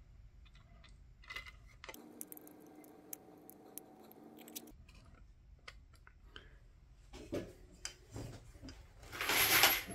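Light clicks and taps of hard 3D-printed plastic parts being handled and turned over, with a louder brief scrape near the end.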